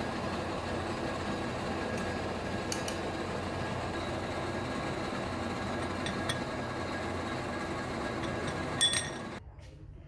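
Steel gear shafts clinking against one another as they are handled, a few sharp metallic clinks with the loudest near the end, over steady machinery noise that cuts off suddenly about nine and a half seconds in.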